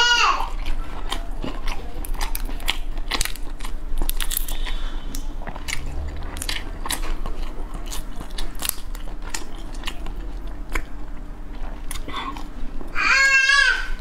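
Close-miked chewing and biting of cooked prawn, with many sharp clicks and crunches throughout. Near the end there is a brief voiced sound from the eater.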